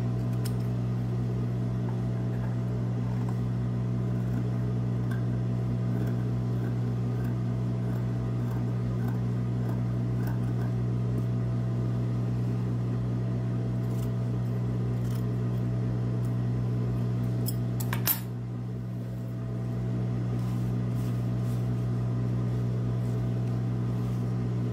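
Scissors snipping threads and fabric in short, scattered clicks over a steady low electrical hum, with one sharper click about eighteen seconds in, after which the hum briefly drops.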